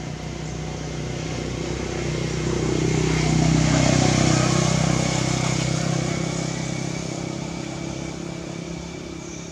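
A motor vehicle's engine running, growing louder to a peak about four seconds in and then fading away, as a vehicle passes by.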